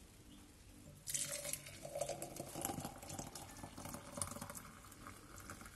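Warm liquid beer jam poured from a stainless steel pot into a glass jar, the stream splashing as the jar fills. The pour starts suddenly about a second in.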